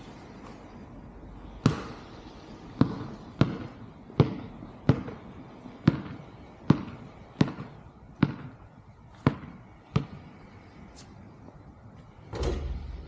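A basketball bouncing hard on pavement, eleven sharp bounces at about one a second, each ringing briefly. Near the end comes a longer, lower thud.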